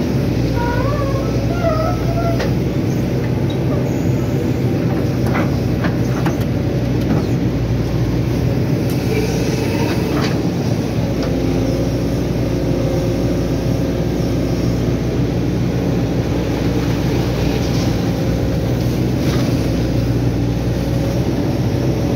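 Excavator's diesel engine running steadily under working load while the bucket digs and dumps mud, heard from the operator's seat, with a few short knocks scattered through it.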